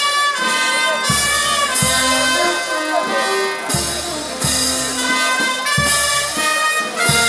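Brass band playing a slow processional march: the brass holds long notes while bass drum and cymbal strike in pairs every couple of seconds.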